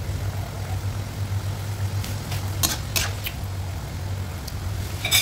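Chicken adobo simmering in a non-stick wok over a steady low hum, the chicken breast cooking through in the sauce. In the second half come a handful of short clicks and scrapes of a spatula against the wok.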